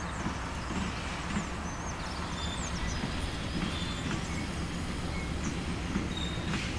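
GE U20C-MP diesel-electric locomotive approaching, its diesel engine running with a steady low rumble.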